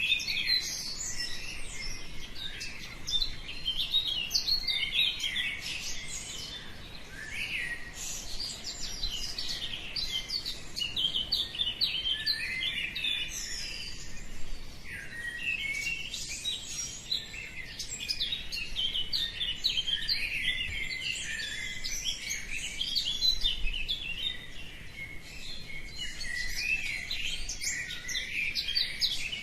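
Many small birds chirping and twittering together: a continuous, overlapping chorus of short high calls and trills, as in a dawn chorus.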